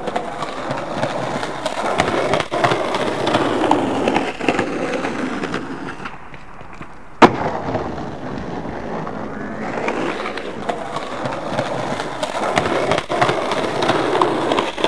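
Skateboard wheels rolling over pavement, a continuous rumble that swells and fades as the rider pushes and carves. A single sharp clack of the board sounds about seven seconds in.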